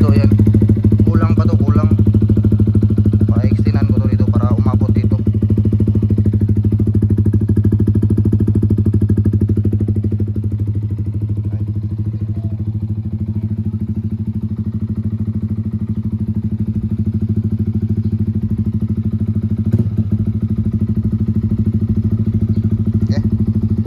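Yamaha Sniper 155's single-cylinder engine idling steadily through an Akrapovic full-system exhaust with no silencer insert, on a stock ECU.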